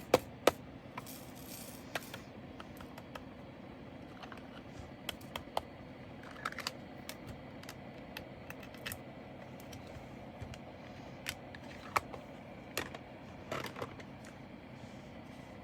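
Irregular light clicks and ticks of small hard plastic pieces being handled: diamond painting drills and their containers tapped and moved about, with about a dozen sharp clicks spread unevenly and a little cluster near the end.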